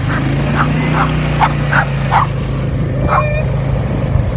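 A four-wheeler's engine running steadily, with a series of short, high yelps over it, about two a second for the first two seconds, then one more a second later.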